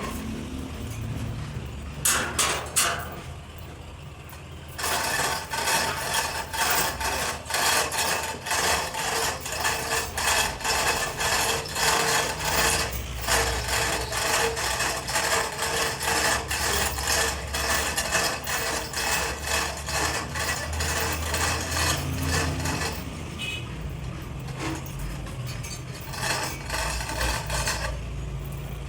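Rapid, steady run of metal-on-metal clicking strokes with a ringing tone from hand-tool work on a steel truck hub part. It starts with a few sharp clicks, runs fast and even for about eighteen seconds, then stops, over a steady low hum.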